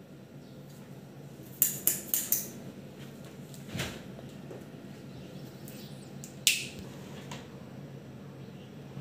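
Sharp clicks and clacks of small hard objects being handled and set down on a workbench: a quick run of four about two seconds in, a softer one near four seconds, and a single sharp clack about six and a half seconds in. A faint steady low hum lies underneath.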